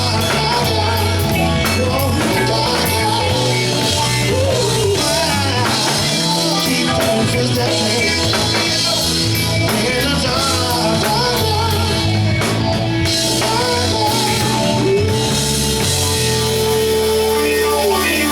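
Live band playing, with bass guitar, drum kit and electric guitar, and a single note held for about three seconds near the end.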